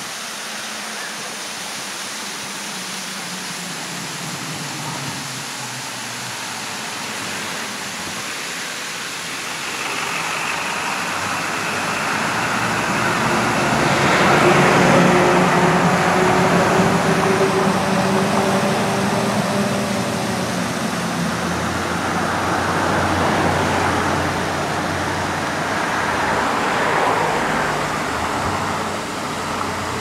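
Steady rush of a waterfall plunging onto a mound of ice. About a third of the way in, a vehicle passing on the road beside the falls swells to its loudest in the middle and then fades.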